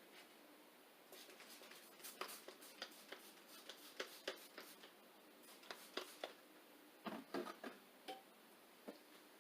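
Faint, irregular light clicks and crinkles of hands handling the vinyl decal and tape on the windshield, with a denser cluster about seven seconds in.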